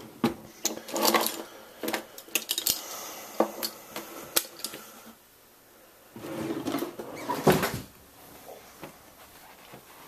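Clicks, knocks and rustles of a handheld camera being carried and things being handled, a quick run of them at first and a rustling stretch later with one loud knock about seven and a half seconds in.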